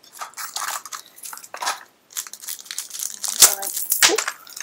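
Crinkling, rustling and tearing of packaging as the next pin is unwrapped from a mystery pin box, with many short crackles.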